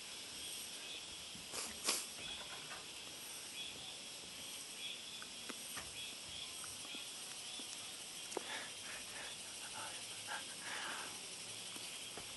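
Faint, steady high-pitched hiss of open-air ambience, with a few short clicks and knocks scattered through it, the loudest about two seconds in.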